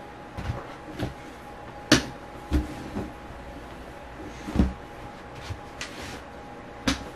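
Scattered knocks and bumps of household things being handled, as a white plastic shell chair loaded with a pillow and blanket is picked up and set down; one sharp knock about two seconds in and a dull thump a little past the middle. A faint steady hum runs underneath.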